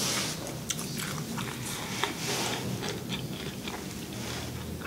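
Close-miked chewing of a mouthful of food, with frequent small wet mouth clicks.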